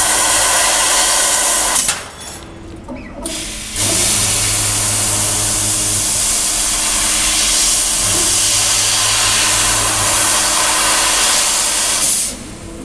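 CO2 laser cutting machine with a 150 W tube working through a cut: a loud, steady hiss with a low hum under it. The hiss drops away for about a second and a half twice, about two seconds in and again near the end.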